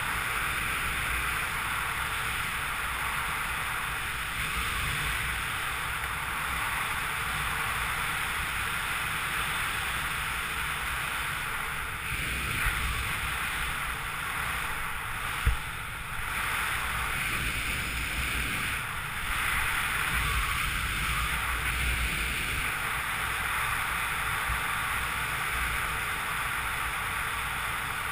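Rushing wind buffeting a helmet-camera microphone during a fast speed-riding descent, a steady roar that swells and eases, with a single sharp knock about halfway through.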